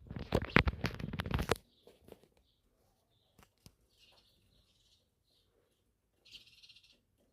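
Sparrows' wings flapping in a loud flurry for about a second and a half, followed by a few short high chirps later on.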